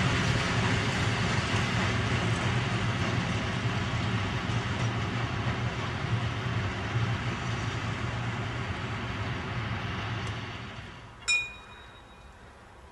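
Nohab My 1142 diesel locomotive's two-stroke EMD V16 engine running with a deep hum, its sound fading away over about ten seconds. Near the end comes a single short metallic ping.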